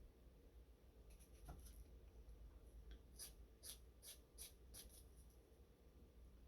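Faint scratchy strokes of a nail file filing the excess nail polish strip off the edge of a patched nail, a few at first, then a quick run of about two strokes a second in the middle.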